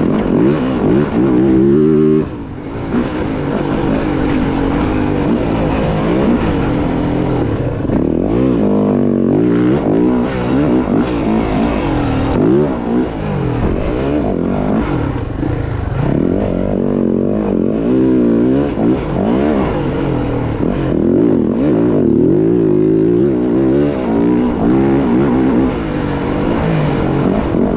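Dirt bike engine revving up and down, its pitch rising and falling again and again as the rider works the throttle.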